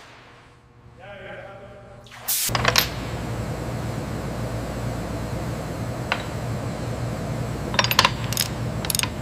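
A steady low hum cuts in suddenly about two and a half seconds in, over a fading rush of noise. Sharp metallic clinks sound over it: a few as it starts, one in the middle, and a quick run of them near the end.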